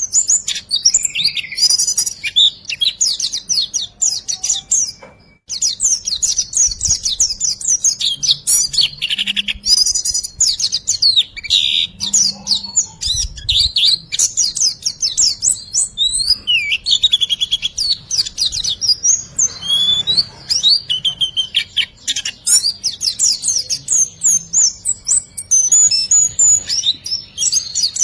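Songbird chirping and trilling continuously in rapid, high-pitched phrases: a masteran recording used to tutor cage birds, with a brief break about five seconds in.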